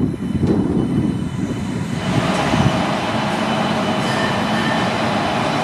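WAP-7 electric locomotive: a low rumble as it rolls slowly along the track. About two seconds in, this gives way to a steady machine hum with a few held whining tones from the locomotive's running equipment.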